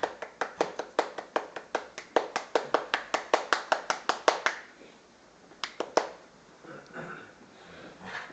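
Rapid, even hand clapping, about five claps a second, stopping about four and a half seconds in, followed by two more claps a little later.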